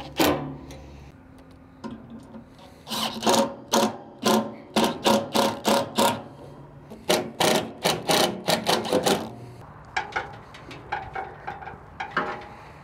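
Cordless impact driver run in a string of short bursts, driving screws back in; the densest run of bursts falls in the middle, with lighter, scattered ones near the end.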